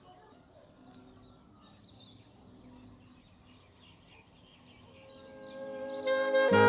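Faint outdoor background with small birds chirping. About five seconds in, music fades in and becomes loud near the end, with a saxophone carrying the tune.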